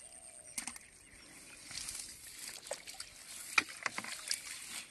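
Hands working through a shallow puddle of wet mud, with irregular wet squelches, small splashes and sharp clicks. The sharpest click comes about three and a half seconds in.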